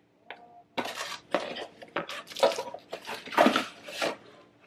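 Hard objects clattering and knocking as the contents of a box are handled: about eight sharp rattles packed into three seconds, the loudest a little past the middle.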